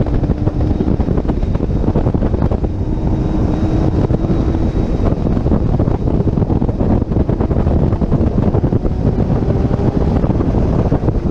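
Heavy wind buffeting on a hood-mounted camera's microphone at track speed, with the C6 Corvette Z06's 7.0-litre LS7 V8 running underneath.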